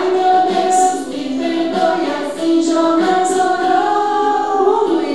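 Christian children's song about Jonah and the fish: women's and group voices singing a simple melody with held notes.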